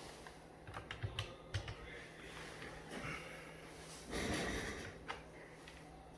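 Scattered light clicks and taps over a faint low hum, most of them in the first two seconds, with a short noisy rustle a little after four seconds.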